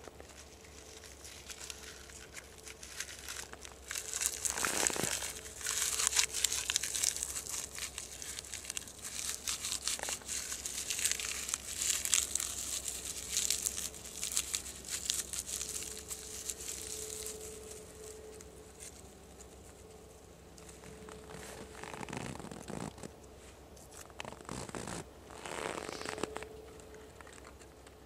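Dry tinder being rubbed and crumpled between the hands, a crinkling, tearing rustle that starts a few seconds in, runs busiest through the first two-thirds, and comes back in a few shorter bouts near the end.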